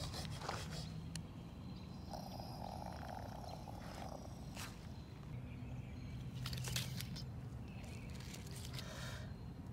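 A low, continuous growling rumble, a voice imitating a dinosaur, with a few light knocks.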